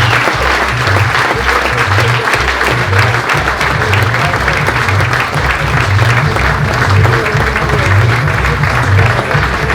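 Audience applauding over music with a steady bass beat.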